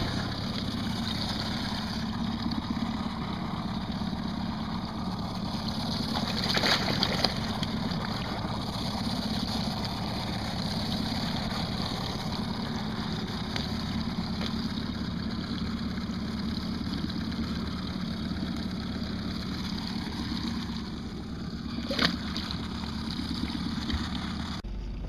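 Small outboard motor running steadily at trolling speed, a constant low hum with water noise around it. A louder burst of noise comes about seven seconds in, and a single sharp knock near the end.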